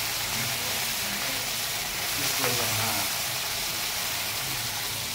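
Rohu fish pieces frying in hot oil in a steel kadai over a high flame: a steady sizzling hiss.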